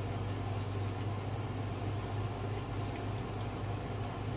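Steady low hum of kitchen room tone, with faint, scattered soft clicks of chewing bread.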